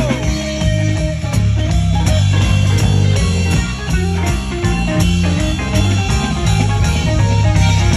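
Live band playing an instrumental stretch of a soul/R&B song with no singing: electric guitar over a bass line, keyboard and a steady drum beat.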